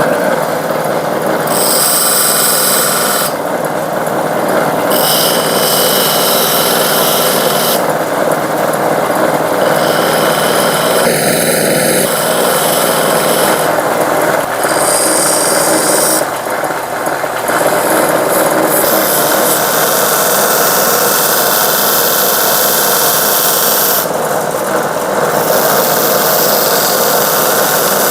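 Belt sander running with an ultra-fine surface conditioning belt, a steel screwdriver shaft pressed against it to clean off rust. A steady motor-and-belt noise, with a high scrubbing hiss that comes and goes as the steel is pressed on and lifted off.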